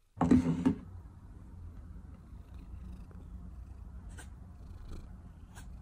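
A cat purring steadily in a low rumble. A short, loud burst of sound comes just after the start, and a few soft clicks come near the end.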